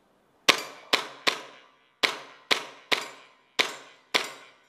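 Airsoft pistol firing eight sharp shots at an uneven pace, each crack followed by a short echo off bare concrete walls.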